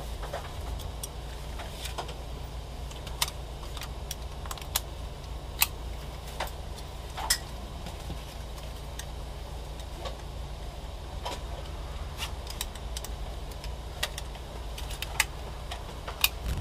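Scattered sharp metallic clicks and small rattles from the buckle and adjusters of a four-point racing harness being handled, over a low steady rumble in the car's cabin. A few of the clicks are louder than the rest.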